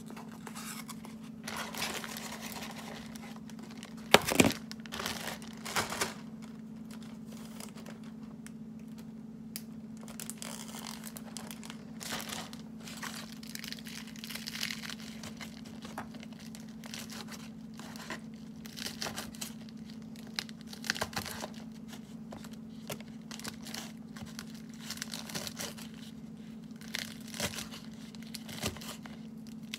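Lettuce leaves being torn by hand, giving crisp tearing and crinkling rustles scattered throughout. There is a loud knock about four seconds in, and a steady low hum underneath.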